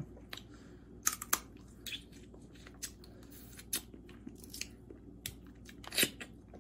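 Eating crab legs close to the microphone: chewing, with scattered sharp cracks and clicks of shell about a second apart.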